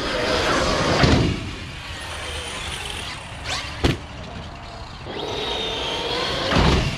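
Small brushless electric motors of Kyosho Mad Van VE RC monster trucks whining over tarmac, the pitch rising as one speeds up about five seconds in. There are two dull thumps, about a second in and near the end, and one sharp knock near the middle.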